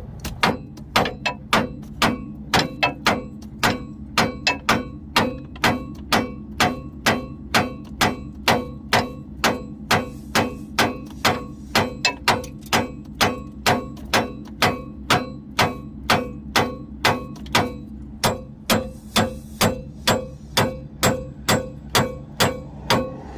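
Hammer blows on steel steering linkage, about two a second and repeated steadily, each with a short metallic ring: a stuck tie rod end being driven free.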